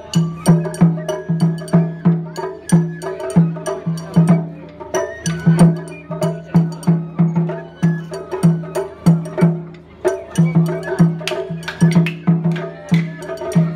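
Japanese festival hayashi played on a float: taiko drums beaten in a brisk, steady rhythm, deep drum notes under sharp high clacks, with a held melody line above.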